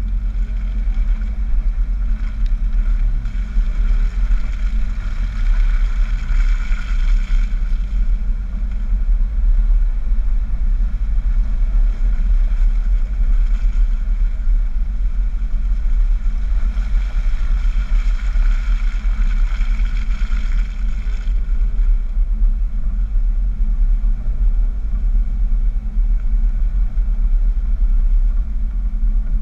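Dodge Power Wagon pickup driving slowly along a muddy, slushy trail, heard from low on its side by the front wheel: a steady low rumble of engine and tyres. Twice a louder hiss rises over it for several seconds, first about three seconds in and again past the middle.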